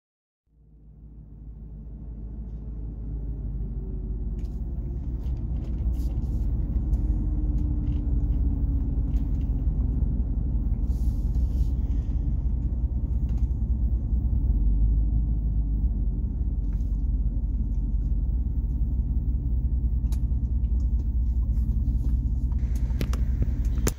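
Car cabin rumble while driving: steady low engine and road noise heard from inside the vehicle, fading in over the first few seconds and cutting off abruptly at the end.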